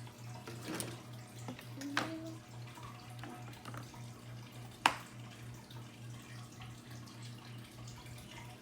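A few light clicks and taps of Play-Doh pieces and plastic tools being handled, the sharpest about five seconds in, over a steady low hum.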